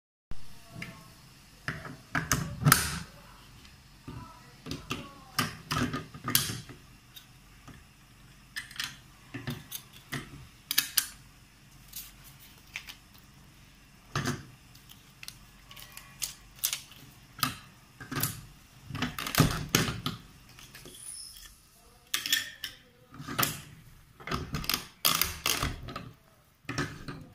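Manual button-badge press being worked by hand: a string of separate clicks and clunks as badge parts are set into the die, the die base is swivelled and the lever is pulled down to press the badge.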